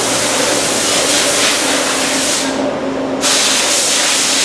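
Loud, steady hissing noise of a factory floor, like air or spray equipment, over a faint steady hum; the hiss drops away briefly for under a second about two and a half seconds in.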